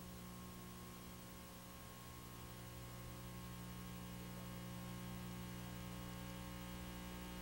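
Steady electrical mains hum with a faint hiss underneath, and nothing else.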